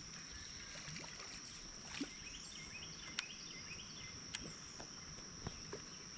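Steady high-pitched drone of insects calling, with a few sharp clicks standing out over it.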